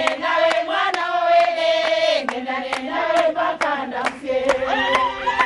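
A group of women singing together in chorus, with steady hand clapping at about three claps a second.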